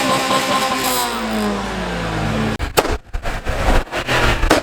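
A tuned car's engine with its revs slowly falling away, then about two and a half seconds in a sharp bang and a run of crackling pops, with another bang near the end: exhaust bangs on the overrun.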